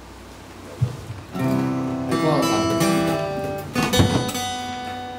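Two acoustic guitars strumming chords and letting them ring. One chord is struck about a second and a half in and another near four seconds, each left to sustain.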